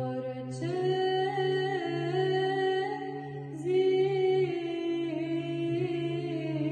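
A woman singing Byzantine chant unaccompanied: a slow line of long, ornamented notes that steps up in pitch about half a second in and again near four seconds, over a steady low drone held beneath it.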